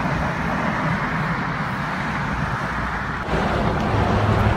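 Road traffic: a steady rush of cars going by. About three seconds in it changes suddenly to a louder, steadier low hum.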